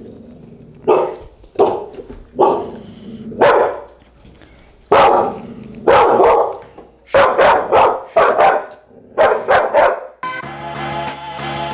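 Australian shepherd puppy giving about a dozen short, sharp barks at irregular intervals, quicker toward the end. These are the spiking barks the trainer puts down to suspicion and unease. Background music starts near the end.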